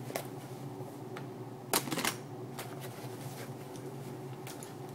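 Vinyl and fabric brush roll being handled as its removable section is taken off: scattered small clicks and rustles, with a short, louder rasp about two seconds in.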